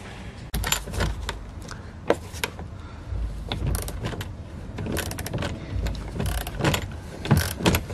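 Cordless ratchet turned by hand on a bolt, its pawl clicking in irregular strokes.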